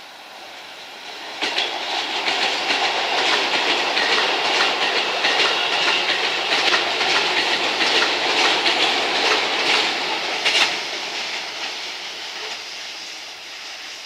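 Keisei 3000 series electric commuter train passing close by, its wheels clacking over rail joints in a quick run of clicks. It comes up loud about a second and a half in, gives a sharp click near the ten-second mark, then fades away.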